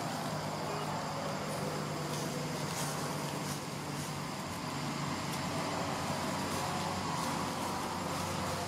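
Steady low motor-like hum with a thin, constant high insect whine over it; no monkey cries stand out.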